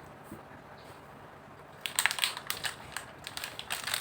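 Plastic snack packaging crinkling as it is handled, a dense run of crackles starting about two seconds in after faint room tone.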